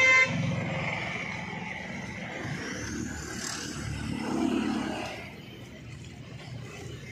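A vehicle horn sounds and cuts off just after the start. Then comes the rumble of road traffic, swelling about four to five seconds in as a vehicle passes, then fading.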